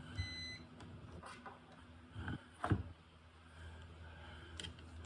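A short electronic beep, then a few soft handling knocks and clicks over a low steady hum.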